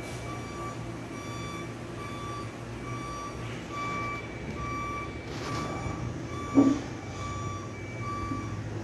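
Steady electronic beeping at one pitch, about two short beeps a second, over a low hum. A brief low thump about six and a half seconds in is the loudest moment.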